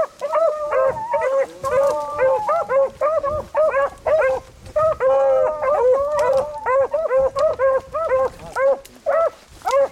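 Several beagles baying while trailing a rabbit, a quick unbroken string of short rising-and-falling barks from overlapping voices, about three a second.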